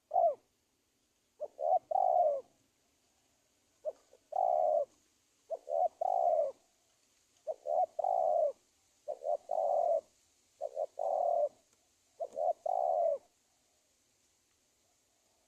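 Spotted dove (tekukur) decoy cooing: a run of about seven phrases, each a couple of quick short notes followed by a longer coo, repeated about every one and a half seconds, used as a lure call for wild doves. It stops about two seconds before the end.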